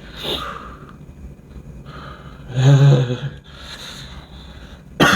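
A man drawing on a kretek cigarette and blowing out smoke: breathy inhales and exhales, with a short voiced sound about two and a half seconds in.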